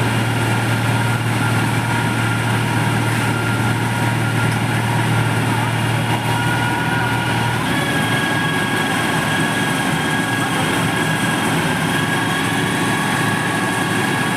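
Heavy engine of road-paving machinery running steadily, a low hum with a whine over it. About halfway through, its note changes: the low hum drops back and a higher whine takes over.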